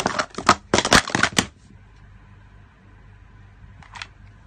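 Hard plastic sport-stacking cups clattering in quick succession as they are stacked up and down at speed, for about a second and a half before stopping.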